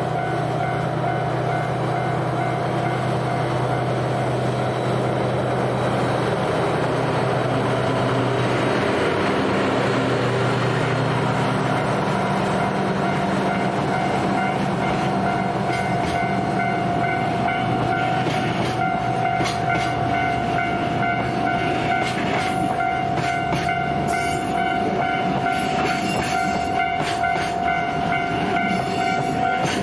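Level-crossing warning bell sounding continuously while a diesel train approaches and passes: a low engine drone in the first half, then rapid clicking of wheels over the rail joints through the second half.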